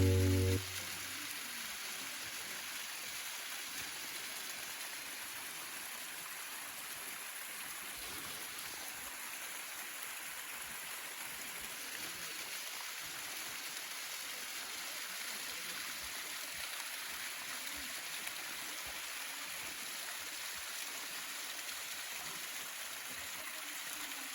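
Steady rushing of a mountain stream, even and unbroken.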